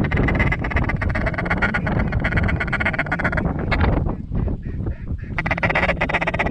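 Fast, chattering duck calling in two runs: the first lasts about three and a half seconds, the second starts about five and a half seconds in.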